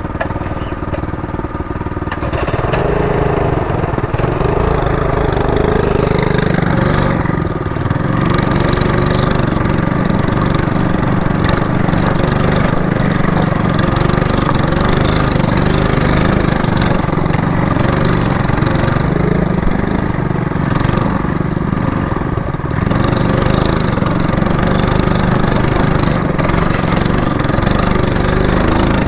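Trailmaster MB200 minibike's small single-cylinder engine running under way, its pitch rising and falling with the throttle.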